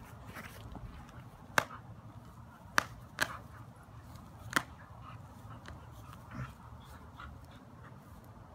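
Dogs' teeth clacking and snapping on a tug toy during a tug-of-war: four sharp clicks in the first half, with fainter ticks between them.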